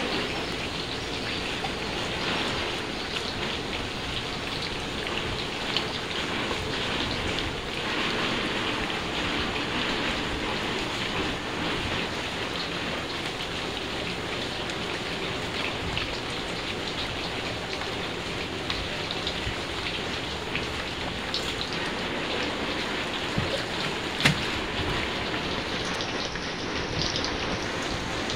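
Steady rain falling, with scattered drops ticking and one sharp click near the end.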